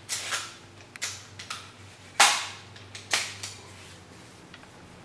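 Spring-powered bolt-action VSR-10 airsoft sniper rifle, with upgraded piston and spring, being worked and fired. A series of sharp clicks and snaps, the loudest one about two seconds in.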